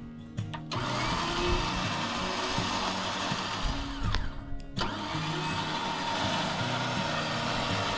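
Warn Evo 12K electric winch motor running under power from its remote, a steady whir that starts under a second in, stops briefly a little after four seconds in, then runs again.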